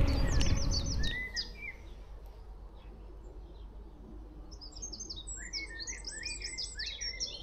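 Small birds chirping in quick, high runs: a short burst about a second in, then a longer stretch of rapid chirping from about halfway. Wind rumble on the microphone fades out during the first second.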